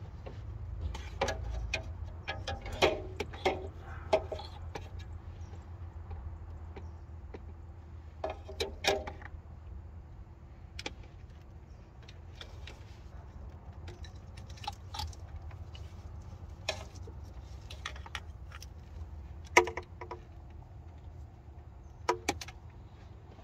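Metal hand tools clinking and clicking at irregular intervals as a wrench with a T30 Torx bit works a water-pump bracket screw loose, with clusters of sharper clinks near the start, at about nine seconds, and twice near the end. A steady low hum runs underneath.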